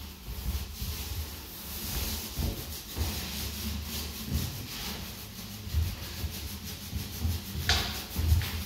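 Paint roller on an extension pole rolling paint along a wall: a rubbing hiss that swells and fades with each stroke, with soft low knocks in between and a louder scrape near the end.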